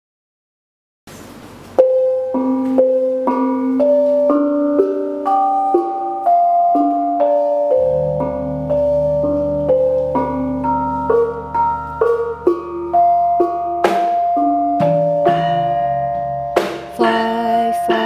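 Malay gamelan ensemble playing a melody on bronze kettle gongs (keromong) struck with padded sticks, along with other struck bronze instruments; the notes ring on and overlap. The playing starts about two seconds in, and a deep low ringing joins about eight seconds in.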